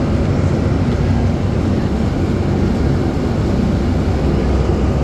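Amphibious duck tour vehicle's engine running steadily under way on the river, a loud, even low rumble.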